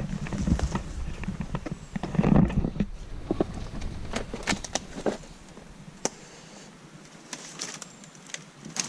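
Footsteps pushing through undergrowth, with twigs and brush crackling and snapping underfoot in an irregular run of clicks. It is busiest in the first five seconds, then thins out to scattered cracks.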